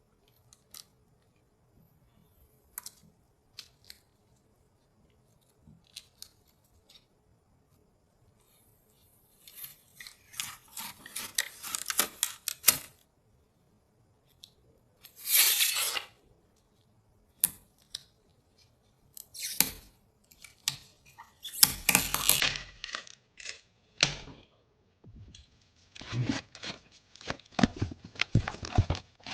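Packaging being handled and opened by hand: scattered light clicks and taps, then from about ten seconds in, repeated bursts of crinkling and tearing.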